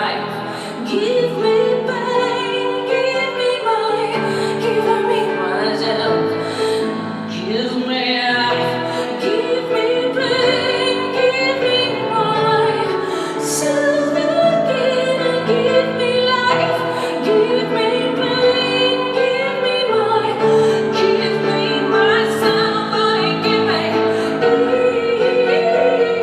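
Live music: a woman singing long, wavering wordless lines over sustained piano and keyboard chords.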